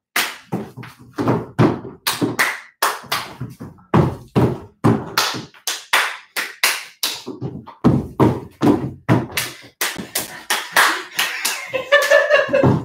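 Two people doing a throw-clap-jump drill with tennis balls on a wooden floor: a quick, irregular run of hand claps, balls smacking into palms and feet thudding down from jumps, two or three knocks a second.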